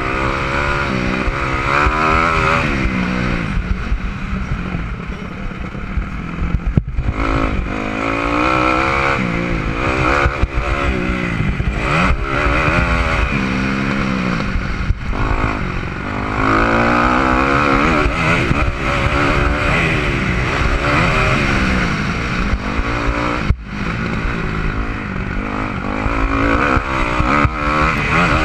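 Dirt bike engine heard close from the rider's helmet, revving up and down over and over as the rider works the throttle and shifts around a motocross track. The sound drops out sharply for a moment twice.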